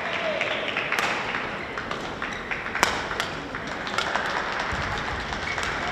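Badminton rally: a few sharp racket strikes on the shuttlecock, the loudest about three seconds in, over steady clapping from the stands.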